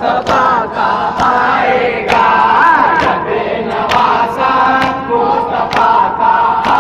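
A crowd of mourners chanting a nauha together in a loud, sustained chant. Sharp slaps of chest-beating (matam) come about once a second, in time with the chant.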